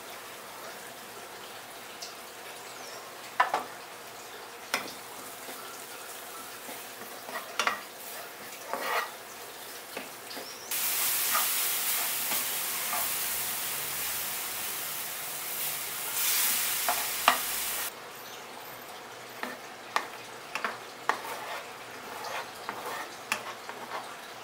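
Mushrooms frying in a hot non-stick pan, sizzling steadily while a silicone spatula stirs, tapping and scraping the pan. About eleven seconds in, a much louder sizzling hiss starts and runs for about seven seconds as cream goes into the hot pan for the sauce, then drops back to the quieter sizzle and stirring.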